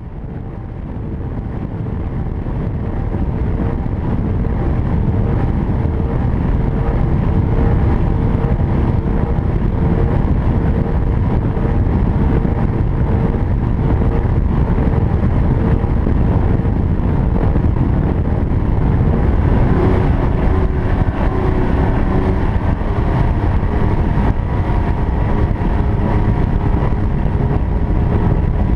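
Finnsport 500RS speedboat running at speed: a steady engine drone over a heavy low rush of wind and water. It grows louder over the first six or seven seconds, then holds steady.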